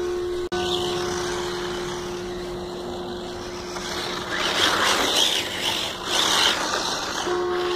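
Electric radio-controlled Tamiya TL-01 Subaru rally car driving over icy, gritty pavement. Its motor and tyres get loud as it passes close, about halfway through, with two louder surges before it fades again.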